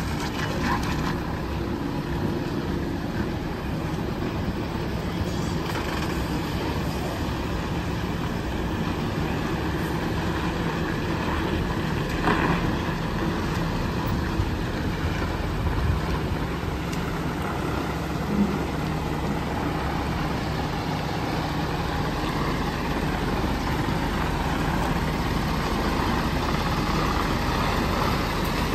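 Heavy truck's diesel engine running steadily at low speed as a tractor unit moves slowly across a yard.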